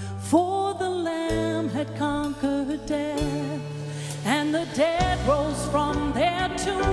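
A woman singing the lead line of a slow Christian worship song with vibrato, over an instrumental accompaniment of long held bass notes and chords.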